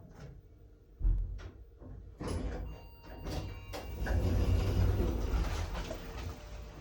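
Lift doors sliding, with a knock about a second in and a louder low rumble near the middle.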